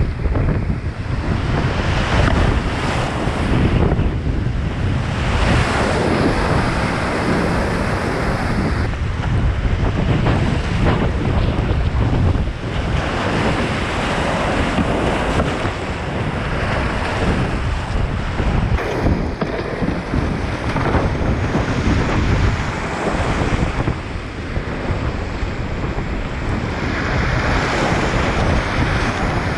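Rushing whitewater of a flooded upland river around a kayak running the rapids, a continuous loud roar that swells and eases every second or two, mixed with wind buffeting the camera microphone.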